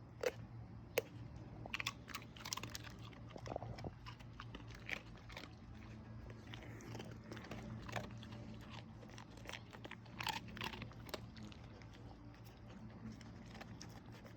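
A German Shepherd biting and crunching a Milk-Bone dog biscuit: faint, irregular crunches over a steady low hum.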